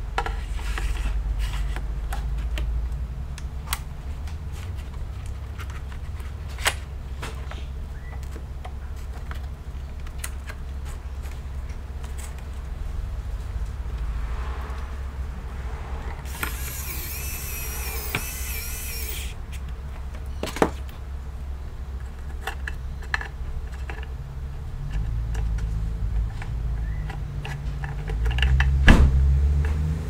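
Small electric precision screwdriver whining for about three seconds midway through as it turns a screw, its pitch wavering. Around it are scattered clicks and taps of small metal parts and tools being handled, over a steady low hum, with a louder handling bump near the end.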